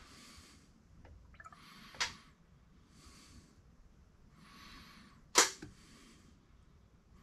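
Brake fluid being poured from an upturned plastic bottle into a brake master cylinder reservoir: faint, soft rushes of liquid and air every second or so, with two sharp clicks, about two and five and a half seconds in, the second the louder.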